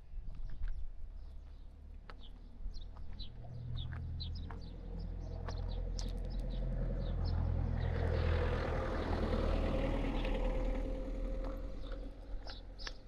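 A vehicle passing by: a noise that swells over several seconds, peaks about two-thirds of the way through and fades, with a steady hum under it. Small birds chirp throughout, over a low rumble.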